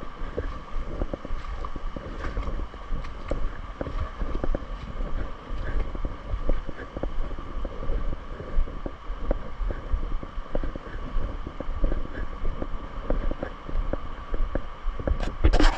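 Wind buffeting the microphone over a steady rush of flowing river water, the Virgin River in the Narrows. A brief louder rustle comes near the end.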